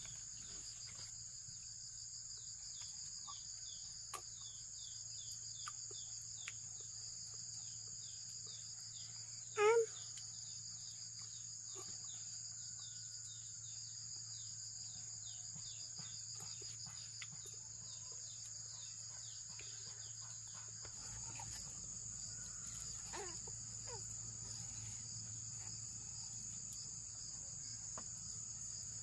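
Steady high-pitched chorus of insects, with rows of quick falling chirps through the first part and one short, louder call about ten seconds in.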